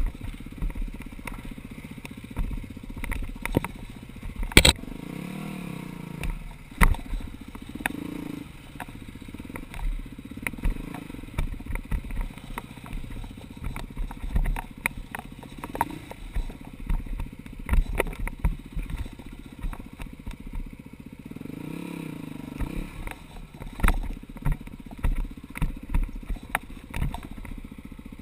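Four-stroke dirt bike engine running at low speed, its note rising and falling with the throttle over a rocky trail, with frequent knocks and clatter from the bike over rocks and one loud knock about four and a half seconds in.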